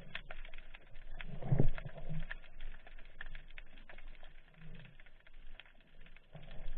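Muffled underwater sound through a camera's waterproof housing: scattered clicks and crackles with a few low thumps, the strongest about one and a half seconds in.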